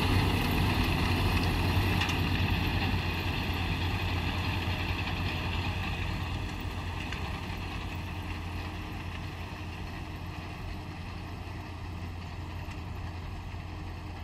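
John Deere 6830 Premium tractor's six-cylinder diesel engine running steadily while pulling a Krone Comprima V 180 XC round baler that is baling straw, the engine hum and baler noise fading gradually as they move away.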